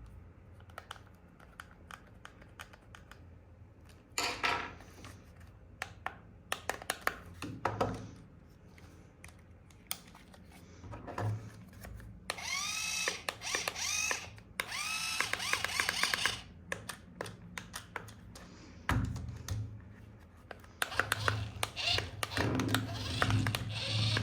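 Clicks and rustling from handling a plastic RC toy vehicle, with short bursts of a small electric motor whirring in quick rising sweeps about halfway through, and a low hum with more clicking near the end.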